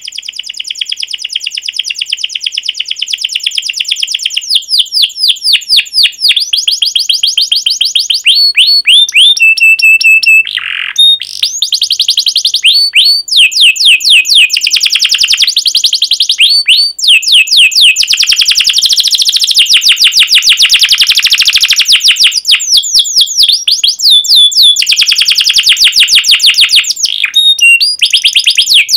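Roller canary singing a long, unbroken song of fast trills and rapidly repeated chirps, with a short held whistle about ten seconds in.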